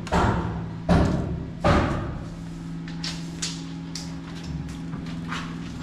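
Three heavy knocks about a second apart, then a few lighter taps, over a steady low hum.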